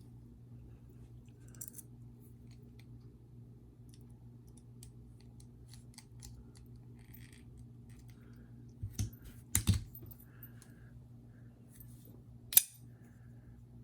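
Small metal clicks and taps from a steel-framed folding knife and small tools being handled during reassembly, with a few louder clacks about nine to ten seconds in and one sharp click near the end. A faint steady hum lies underneath.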